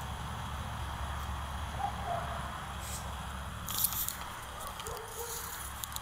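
Crunching and rustling footsteps in snow and dry leaves, clustered about four seconds in and again near the end, over a steady low rumble of wind on the microphone.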